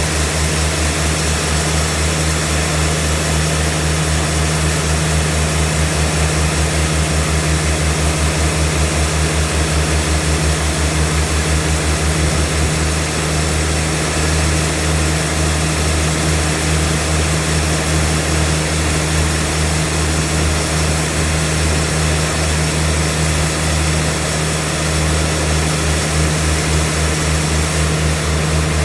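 Sawmill machine running: a loud, steady low drone with a hiss over it. The drone pulses rapidly for stretches in the middle and near the end.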